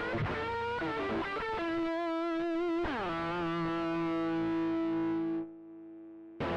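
Overdriven electric guitar from a 1974 Fender Telecaster Custom, recorded straight from a SansAmp Classic pedal in its Norm (Mesa-voiced) mode: a few notes, then a held note with vibrato. The pitch drops about three seconds in, and a single note sustains until it is stopped about five and a half seconds in; playing starts again right at the end.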